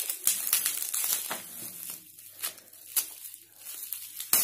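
Plastic bubble wrap being peeled and pulled off a box by hand: irregular crinkling with sharp crackles, the loudest just after the start and near the end.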